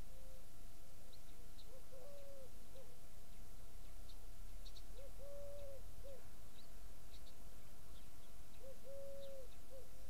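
A dove cooing in a low three-note phrase, short–long–short, repeated three times about three and a half seconds apart, with faint high chirps of small birds in between.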